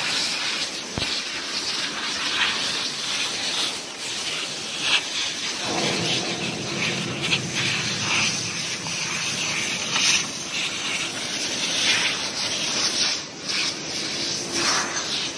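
A hand-held hose jetting with a loud, steady hiss that swells and dips in strength.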